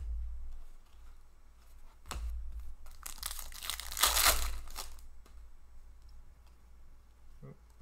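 Foil wrapper of a hockey trading-card pack being torn open and crinkled, loudest about four seconds in.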